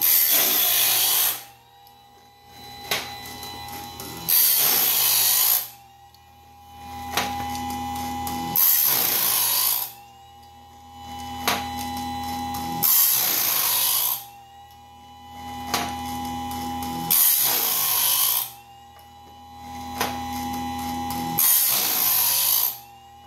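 Homemade bandsaw blade sharpener built on a modified Harbor Freight chainsaw sharpener, grinding the blade's teeth one after another: a loud hissing grind of about a second as the wheel comes down on a tooth, repeated six times at even intervals of about four seconds. Between grinds the motors hum steadily, with one sharp click midway.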